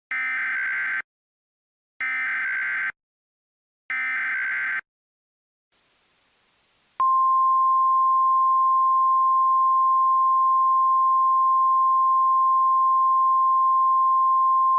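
Emergency Alert System activation: three short digital data bursts of the SAME header, each about a second long and evenly spaced. After a moment of faint hiss, a single steady alert tone starts about halfway through and holds.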